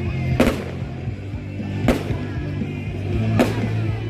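Fireworks shells bursting three times, about a second and a half apart, each a sharp bang with a short tail, over music with steady low notes.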